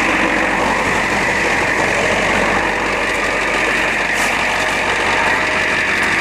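Ford pickup's diesel engine idling with a steady rattle.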